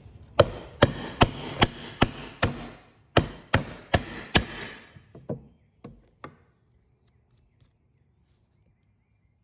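Hammer striking a steel seal driver, tapping a new pinion seal into the retainer plate of a quick-change rear end: about ten sharp, ringing blows, roughly two and a half a second with a short break, then a few lighter taps.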